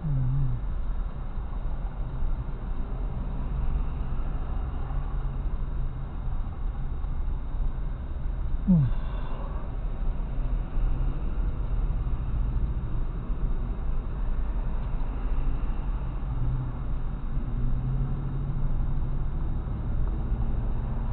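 Steady low rumble of a car driving, heard from inside the car. About nine seconds in there is one short squeak that rises quickly in pitch.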